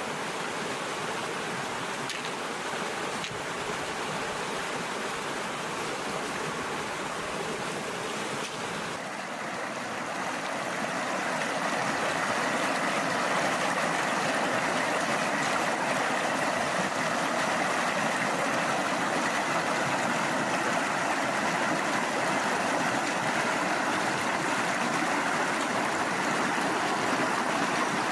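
Shallow river rushing and splashing over rocks, a steady flow that grows louder about a third of the way in.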